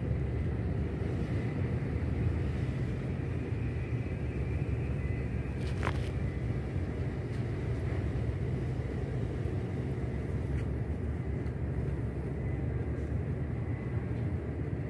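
Steady low outdoor rumble with a faint steady high tone above it, and a single sharp click about six seconds in.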